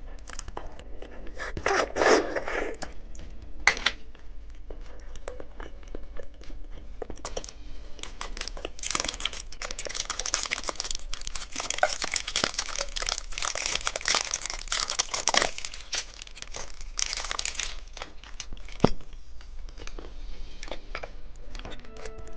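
Plastic candy wrappers being crinkled and torn open: a dense crackling with sharp clicks throughout, busiest through the middle stretch.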